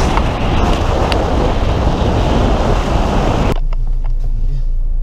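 Wind rushing over the microphone along with road noise from a moving car, heard at its open window. About three and a half seconds in it cuts off sharply to a steady low rumble heard inside the Toyota's cabin.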